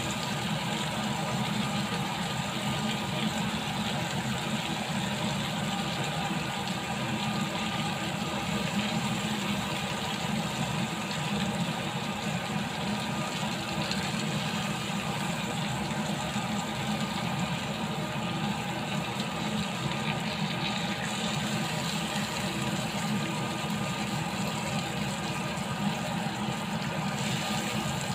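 Lamb chops sizzling in a cast-iron grill pan, with a steady, even hum underneath. Metal tongs take the chops out of the pan.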